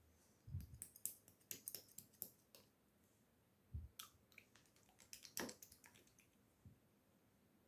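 Clear slime with strawberry charm pieces being pressed and handled: a run of small sharp clicks and wet pops, with two soft low thumps about half a second and nearly four seconds in.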